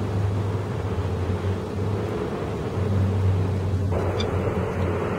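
Steady low hum of a vehicle engine running.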